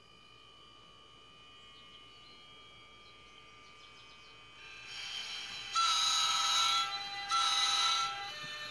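Sound decoder of a model NJ Transit ALP-45DP locomotive in electric mode: a faint steady electrical hum that rises about halfway through as it powers up, then two horn blasts, the first about a second long and the second a little shorter, the two-blast signal that the train is about to move off.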